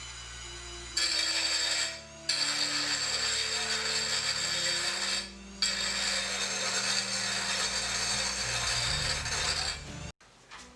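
Dremel rotary tool grinding a small piece of sheet steel, in three passes with two short pauses, stopping about ten seconds in.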